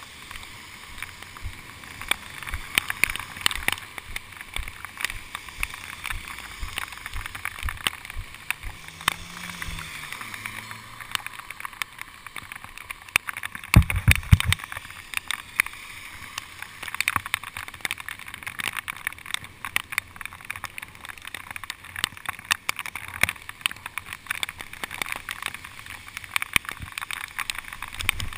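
Steady hiss of a bicycle riding over rain-soaked pavement in the rain, full of sharp ticks and taps, with one loud low thump about halfway through.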